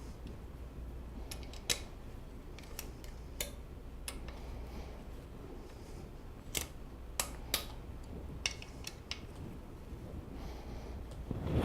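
Hex wrench turning and reseating in the bolts of a task chair's back frame as they are tightened: a string of irregular, sharp metallic clicks and ticks over a low steady hum.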